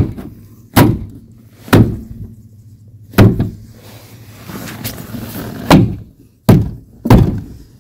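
Plastic interior trim panel of a Toyota Sienna sliding door being struck by hand about seven times, sharp thunks at uneven intervals as its retaining clips are pressed home into the door.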